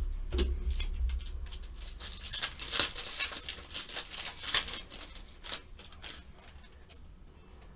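Trading cards and their packaging being handled: a quick run of rustles, crinkles and card flicks, busiest in the middle and dying away near the end.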